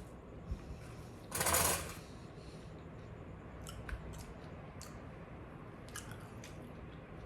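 Eating sounds: chewing with small sharp clicks and taps of utensils and food containers, and one short, louder rustle about a second and a half in.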